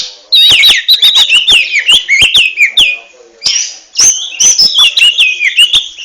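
Oriental magpie-robin (kacer) singing loudly in a fast run of sharp clicking notes mixed with short falling whistles, in two phrases with a brief break just before halfway: the clicking 'ngentrok' style that kacer keepers prize.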